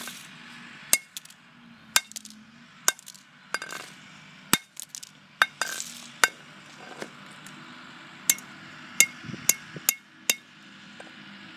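A broken flip phone being struck over and over, about a dozen sharp cracking blows at an uneven pace, pausing for a couple of seconds partway through.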